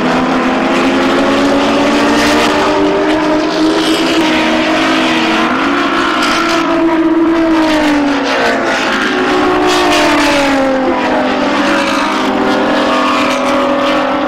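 Several Group A touring cars racing past at high revs, their overlapping engine notes rising and falling as they brake, shift and accelerate through the corners.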